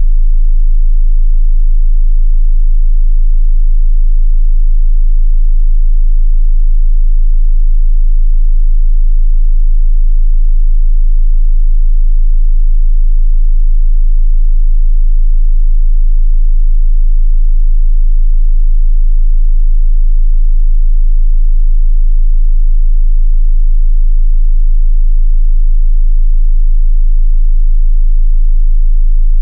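A loud, steady 27 Hz sine-wave test tone, a single very deep bass pitch held unchanged, used to test subwoofers.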